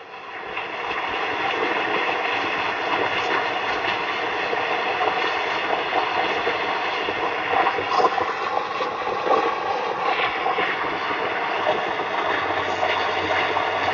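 Handheld propane torch burning with a steady hiss, starting about half a second in, as it heats the sheet-metal hood to burn the paint off.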